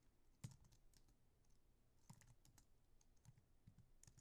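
Faint, scattered keystrokes on a computer keyboard, a few separate clicks over near silence, the clearest about half a second in.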